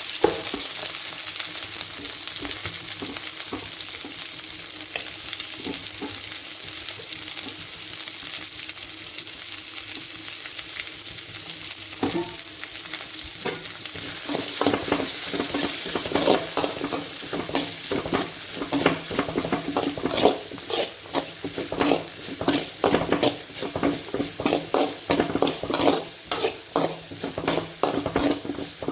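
Chopped onions frying in hot oil in a pan, a steady sizzle. From about halfway, a spatula stirs them with repeated quick scrapes and knocks against the pan.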